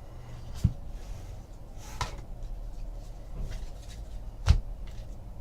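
Trading cards being handled and set down on a table, with three soft knocks, the loudest about four and a half seconds in, over a low steady hum.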